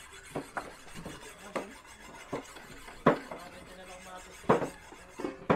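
Irregular sharp knocks and clatter of kitchen utensils, about eight strikes, the loudest about three and four and a half seconds in.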